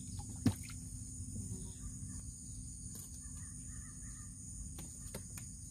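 Steady high-pitched insect drone, with one sharp click about half a second in and a few faint ticks after.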